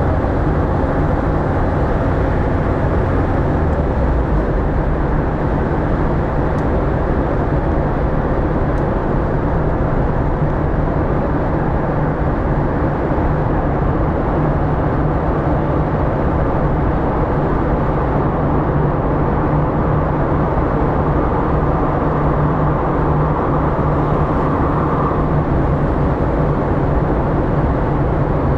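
Steady engine and tyre-on-road noise of a car driving at speed, heard from inside the cabin as it travels through a road tunnel.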